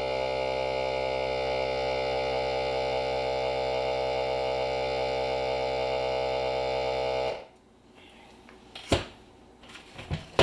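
A small electric appliance motor hums steadily under load, then shuts off abruptly about seven seconds in. A few sharp clicks and knocks follow.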